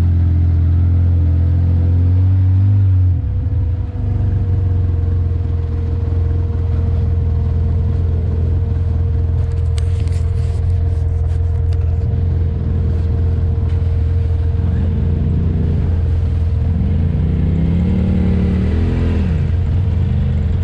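Off-road vehicle engine running at low speed on a rough trail, with a steady whine alongside the low hum. About three seconds in the engine note drops as the throttle eases off, a few light clicks come around the middle, and in the last several seconds the engine revs up and down several times.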